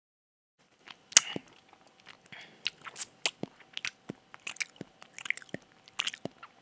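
Lip smacking and tongue clicks from a man tasting a mouthful of pumpkin makgeolli, a run of irregular wet clicks starting about a second in, the first one the loudest.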